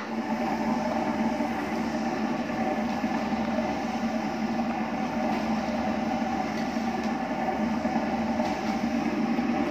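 Detergent powder mixer machine running, its rotating arms churning powder in the steel pan: a steady mechanical drone with a constant low hum.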